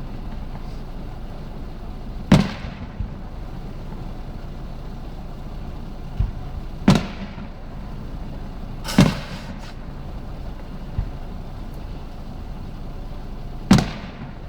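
Fireworks exploding: four loud, sharp booms a few seconds apart, each with a short rumbling tail, with a few smaller pops between them.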